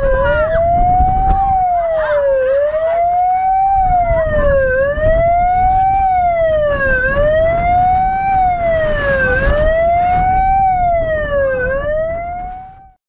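A siren wailing up and down, one rise and fall about every two seconds, loud throughout. A few children's shouts come early in it.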